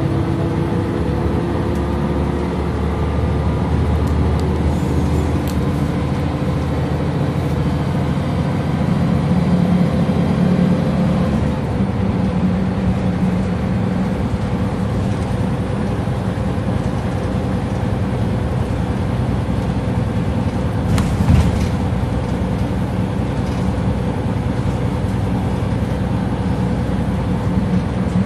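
Scania L94UB single-deck bus, with its nine-litre five-cylinder diesel and ZF automatic gearbox, running under way and heard from inside the passenger saloon. The engine note changes about twelve seconds in, and there is a brief knock a little after twenty seconds.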